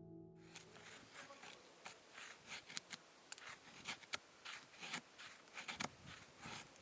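Quiet, irregular small clicks and crackles, several a second, with a few sharper ticks among them.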